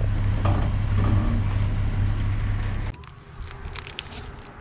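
Vehicle engine idling with a steady low hum, then switched off about three seconds in.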